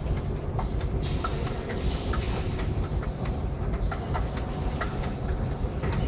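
Escalator running: a steady low mechanical rumble from the moving steps and drive, with irregular light clicks and rattles.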